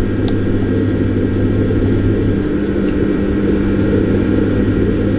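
Electric potter's wheel running at a steady speed, its motor giving a continuous low hum while a cup is thrown on it.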